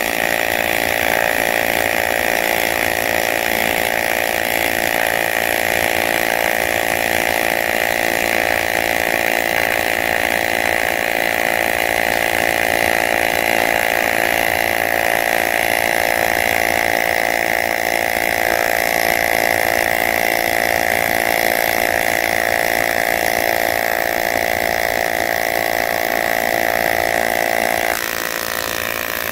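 Welding arc on aluminium pipe giving a loud, steady buzz. It stops about a second before the end as the arc is broken.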